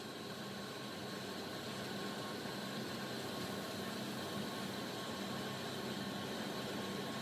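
Steady mechanical hum with a faint high whine, like a running fan or motor.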